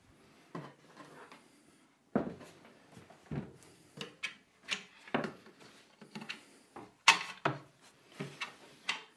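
Overhead campervan locker doors being handled, lowered and shut: a run of sharp wooden knocks and clunks, the loudest about seven seconds in.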